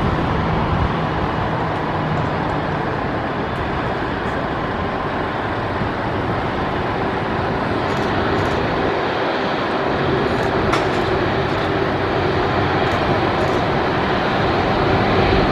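Jet engines of an Airbus A330-200 freighter, a steady loud noise with a faint hum underneath that creeps slightly higher in pitch near the end.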